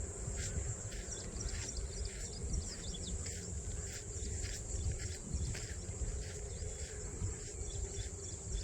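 Outdoor rural ambience: a steady high-pitched insect drone, typical of crickets, over a low rumble of wind on the microphone, with faint scattered chirps.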